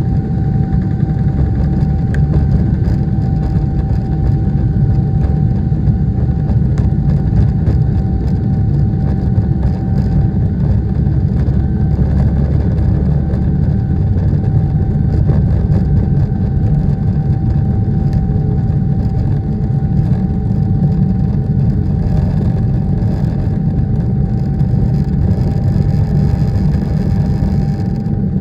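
Boeing 777 jet engines running at high power during take-off: a loud, steady low rumble with a faint steady whine above it.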